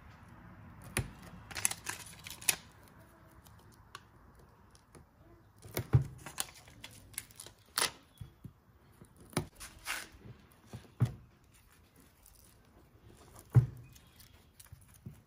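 Hands handling the black plastic fender and fuel tank parts of a riding lawn tractor: scattered clicks, taps and knocks, with the loudest knocks about six seconds in and near the end.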